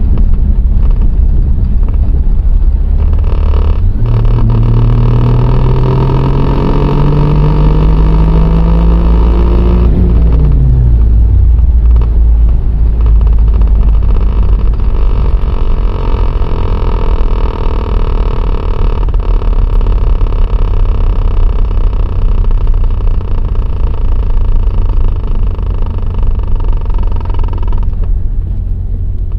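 A DSM car's engine running, held at a gradually rising rev from about four seconds in, then dropping back to idle a little after ten seconds. A steady pitched hum with many overtones sits over it for most of the time. The owner is trying to identify a rattle that he cannot place.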